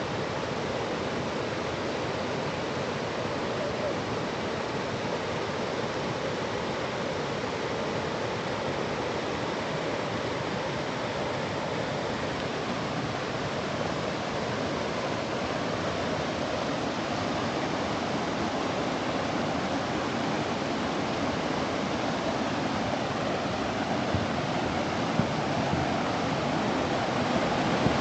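Wide waterfall running over a broad rock ledge at fairly low flow: a steady rush of falling water that grows a little louder near the end.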